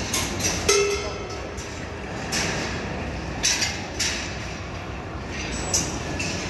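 Balls running through a large rolling-ball machine: a steady rumble of balls rolling along its metal rails, with repeated sharp clicks and clanks as they drop and strike parts of the track, and a short metallic ring just under a second in.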